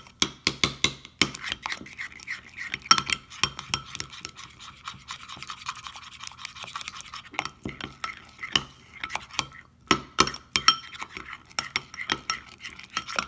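Metal spoon stirring and beating a thick paste in a glass bowl: rapid, irregular clinks of the spoon against the glass, with the bowl ringing faintly.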